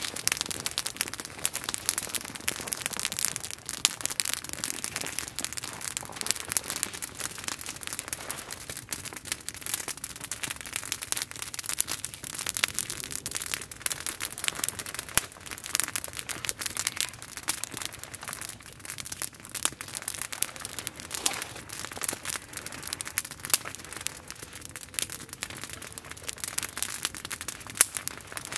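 Small wood campfire crackling, with a steady run of irregular sharp pops.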